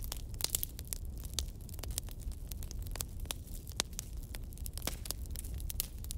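Log fire crackling: dense, irregular sharp pops and snaps over a low steady rumble.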